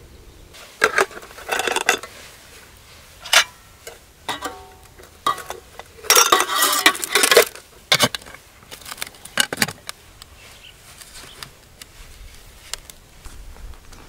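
Aluminium camping cookware pots and lids clinking, knocking and scraping against each other as they are handled, with the longest, loudest clatter about six seconds in; it dies down after about ten seconds.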